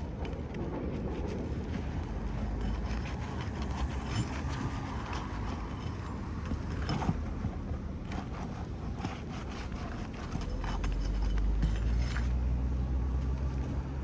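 Metal shingle-repair tool scraping and clicking under asphalt shingles as roofing nails are pried out, in scattered short strokes. Under it runs a steady low rumble that grows louder about ten seconds in.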